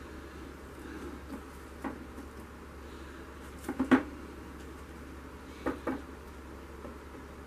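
A few light knocks and taps from a canvas panel and plastic sheeting being handled on a work table, including a sharp double knock near the middle and a softer pair a couple of seconds later.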